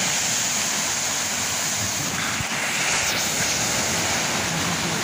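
Sea surf breaking and washing over shoreline rocks, a steady rushing that swells slightly about two to three seconds in.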